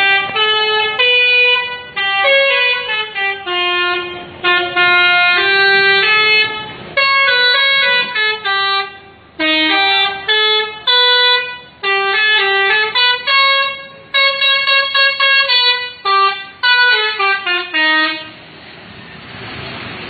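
A bus's multi-tone 'telolet' musical air horn playing a tune of short held notes that change pitch in steps, in phrases with brief gaps. It stops about two seconds before the end.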